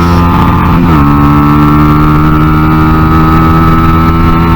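Honda NSF100 minibike's single-cylinder four-stroke XR100 engine running hard on track, heard onboard. Its pitch steps down about a second in, holds steady, then steps down again near the end.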